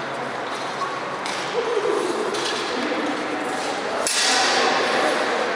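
Longsword blades clashing during sparring: a metallic strike about a second in and a louder clash about four seconds in.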